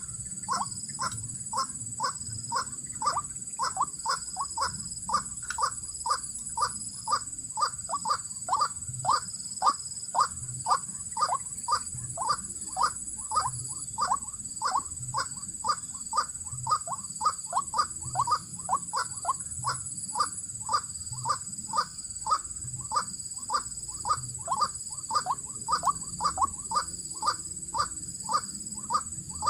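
White-breasted waterhen (ruak-ruak) calling: a short falling note repeated monotonously, about two to three times a second, over a steady high-pitched background drone.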